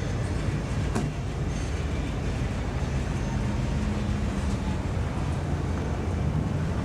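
Steady low rumble of a running vehicle, with a single sharp click about a second in.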